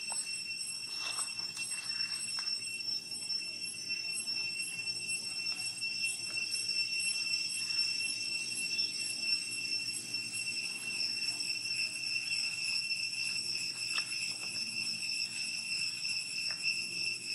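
Steady high-pitched insect drone, one unbroken tone with overtones, with scattered faint clicks and rustles.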